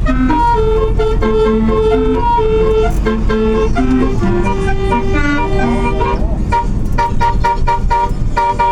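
Bus's basuri multi-tone musical horn playing a telolet melody, a string of held notes changing every few tenths of a second, over a steady low rumble.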